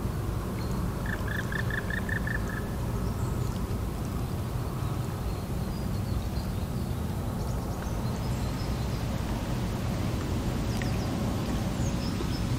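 Lakeside outdoor ambience: a steady low rumble throughout, with a bird giving a quick run of about seven short chirps about a second in, and a few faint high calls later.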